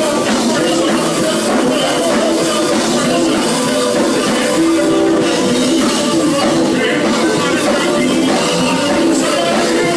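Live gospel music: a band playing at a steady, loud level, with singing in the mix.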